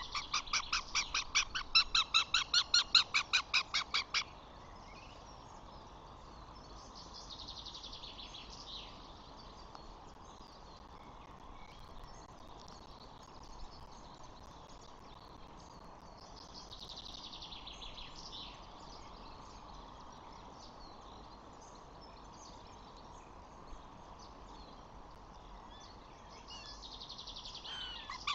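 A bird calls in a rapid series of pulsed notes, about five a second, for roughly the first four seconds. Fainter, falling call phrases follow every nine seconds or so, over a steady outdoor hiss.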